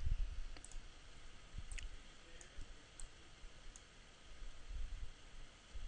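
Faint computer mouse clicks, several scattered single clicks, with a few soft low thumps.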